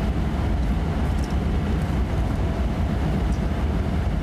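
Steady road and engine noise heard inside a moving car's cabin: a constant deep rumble with an even hiss over it.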